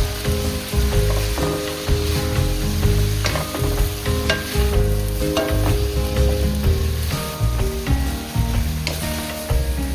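A wooden spatula stirs and tosses bean sprouts and julienned vegetables in a hot nonstick wok. The food sizzles as it fries, and the spatula scrapes and now and then taps against the pan.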